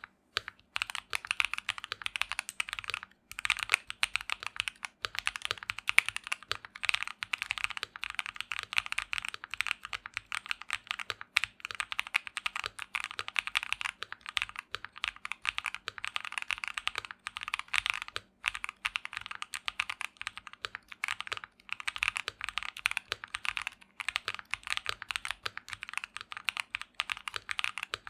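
Keychron Q1 mechanical keyboard with Akko Lavender Purple switches on its stock plate, typed on quickly and steadily: a dense run of keystroke clacks with a couple of brief pauses.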